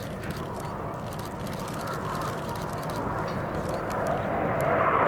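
Jet noise from BAE Hawk T1 aerobatic jets, each with a Rolls-Royce Turbomeca Adour turbofan, flying past: a steady rushing sound that grows louder over the last second or so.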